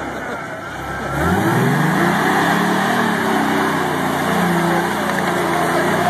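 Lifted Ford Explorer's engine revving hard as the truck ploughs through deep mud. The note sags at first, then climbs sharply about a second in and stays high, rising and falling with the throttle.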